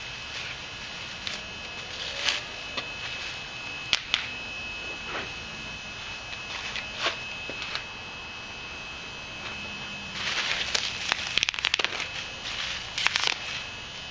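Handling noises as a surplus Mosin-Nagant 91/30 rifle is unpacked and looked over: scattered light knocks and clicks, then a busy stretch of crackling about ten seconds in.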